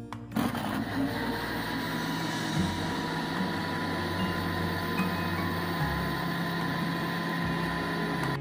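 Electric blender motor running steadily, blending mint leaves in water into a green liquid. The motor starts just after the beginning.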